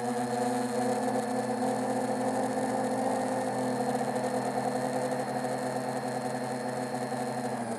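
Brushless Xing 2806.5 1300kv motors and propellers of a 7-inch FPV quadcopter in flight, a steady multi-tone whir picked up by the onboard camera. The pitch steps down slightly near the end as the throttle eases.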